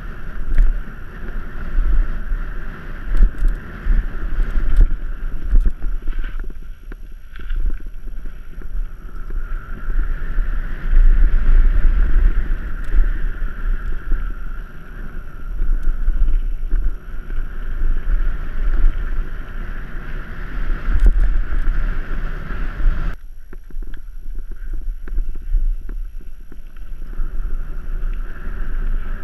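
Wind buffeting the microphone of a mountain-bike action camera and knobby tyres rolling over a dry dirt singletrack, with sharp rattles and clicks from the bike over bumps. The rush eases for a few seconds about three-quarters of the way through, then picks up again.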